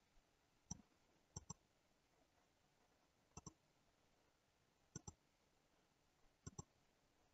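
Faint clicks of a computer mouse button, five in all about a second and a half apart, most heard as a quick press-and-release double tick, over near silence.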